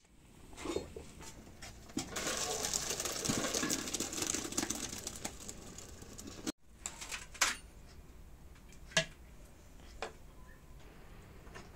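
Boiled rice and its hot cooking water poured into a metal colander over a sink, a splashing rush lasting a few seconds. Then a metal spatula scrapes and clinks a few times as the rice is moved from a steel pan.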